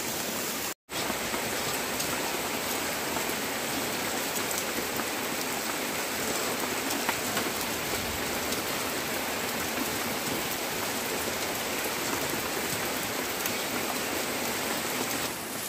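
Steady rain falling, an even hiss throughout; the sound cuts out completely for a moment just under a second in.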